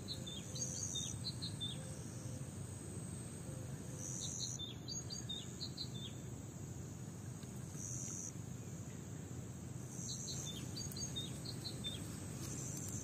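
Crickets chirping steadily in a high band, with three short clusters of bird chirps.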